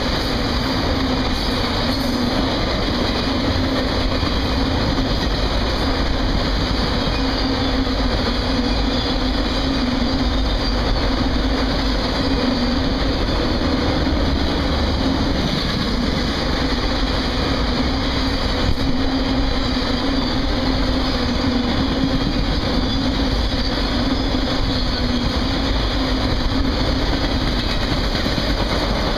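A freight train of autorack cars rolling past, its steel wheels on the rails making a steady, unbroken noise with a low hum running beneath it.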